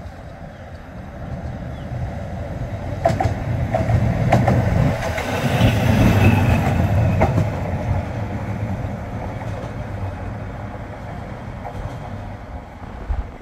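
Heritage electric tram passing close by: the low rumble of its wheels on the rails builds, is loudest as it goes past, then eases off as it moves away. A few sharp clicks from the wheels on the track come during the pass.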